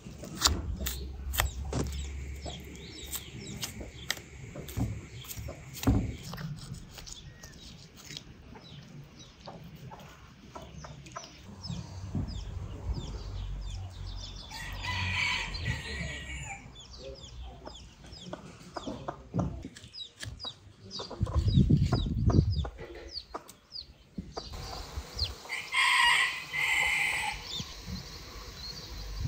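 Chickens clucking, with a rooster crowing twice, once midway and once near the end. Scattered clicks and knocks throughout, and a brief low rumble a little before the second crow.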